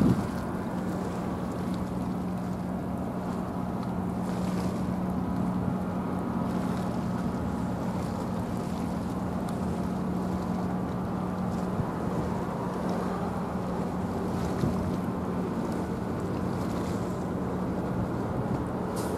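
A large ship's whistle sounding one long, steady low blast, over wind noise on the microphone and the wash of the sea.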